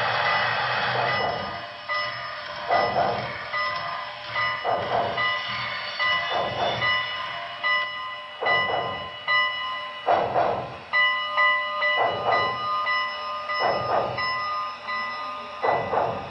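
HO-scale Broadway Limited Paragon3 N&W Class A 2-6-6-4 steam locomotive's onboard sound playing slow steam exhaust chuffs, a strong chuff about every two seconds with softer ones between, over steady high tones. A louder rush of steam noise at the start fades about a second in.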